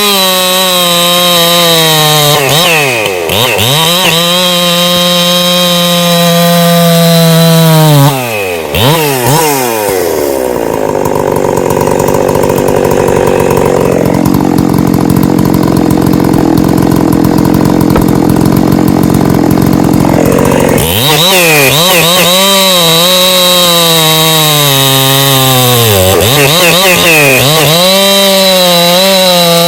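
Ported Husqvarna 365 Special two-stroke chainsaw at full throttle, cross-cutting a log. Its pitch sags and recovers several times as the chain is loaded in the cut, and for about ten seconds in the middle it runs deep in the wood with a rougher, blurred note.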